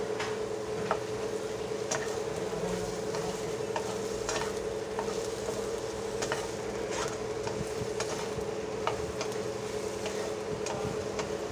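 Peeled parwal (pointed gourd) pieces frying in oil in a nonstick pan, sizzling, while a spatula scrapes and knocks against the pan at irregular intervals as they are turned. A steady hum runs underneath.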